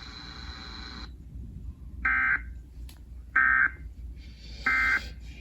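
NOAA Weather Radio SAME end-of-message code: three identical short digital data bursts, each about a third of a second and about 1.3 s apart, signalling that the warning broadcast is over. Before them, a steady radio hiss cuts off about a second in.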